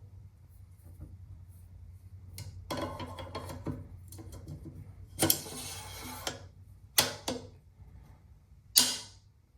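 Metal rifle parts being handled: a stretch of rattling, then a longer scraping rattle, with sharp clacks about five, seven and nine seconds in.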